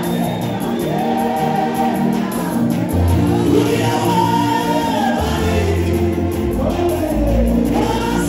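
Gospel choir of mostly male voices singing together through microphones, with instrumental backing; deep bass notes come in about three seconds in.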